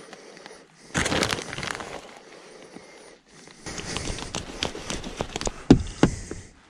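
A plastic packet crinkling as grated cheese is tipped into a steel saucepan. Then a glass lid is set on the pan and shifted, clicking and knocking twice against the rim near the end.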